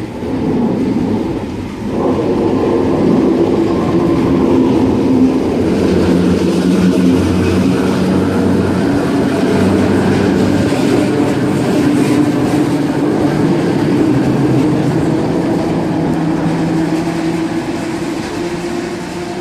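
Heritage electric suburban train set F1 passing through the station, wheels rolling on the rails with a steady motor hum, getting louder about two seconds in.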